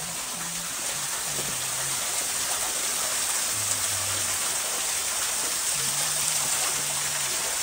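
Waterfall pouring down past the mouth of a rock grotto: a steady rush and splash of falling water.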